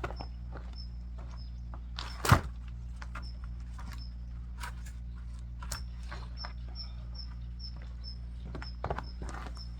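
A single sharp, loud knock about two seconds in, with a few lighter knocks and clicks, over a steady low hum. A short high chirp repeats about three times a second later on.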